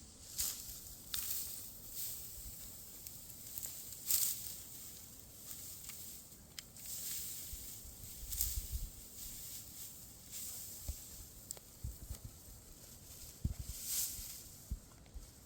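Repeated dry rustling swishes, one every second or two, with scattered soft low thumps.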